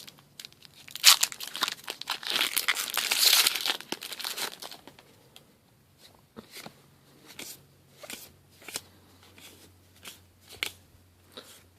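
A foil Magic: The Gathering booster pack wrapper being torn open and crinkled for about five seconds, followed by a string of soft flicks as the cards inside are leafed through one at a time.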